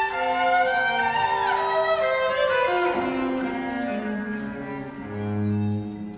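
String trio of violin, cello and double bass playing contemporary chamber music: overlapping sustained bowed notes, with a downward glide about a second and a half in. The lines sink lower in pitch until a low bowed note swells near the end, then the sound thins out.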